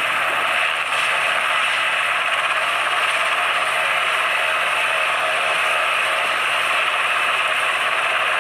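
Black Hawk helicopter running steadily on the ground after landing, its turbine engines and turning main rotor making a loud, even noise.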